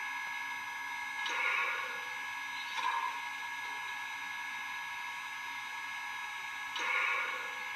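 Standing MTH RailKing Imperial Union Pacific Big Boy model locomotive, its Proto-Sound 3.0 sound system and smoke unit giving a steady whirring hum. Short hissing bursts come in pairs about a second and a half apart, twice.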